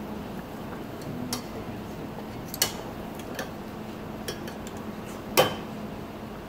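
King oyster mushroom halves searing on a ridged grill pan that is not yet fully hot: a faint, steady sizzle with scattered sharp crackles, two louder pops about two and a half and five and a half seconds in.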